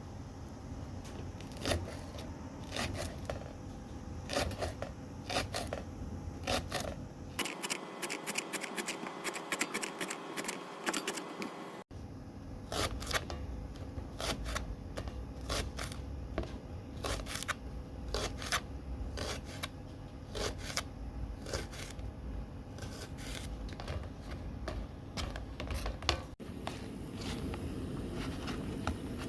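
Many short, light clicks and knocks, irregular and close together, as of utensils and cooking gear being handled. The background hum changes abruptly a few times.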